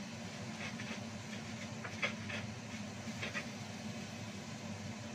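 Steady low hum under a faint hiss, broken by a few short crackles and clicks: a pair about a second in, a sharper one at about two seconds, and another pair a little past three seconds.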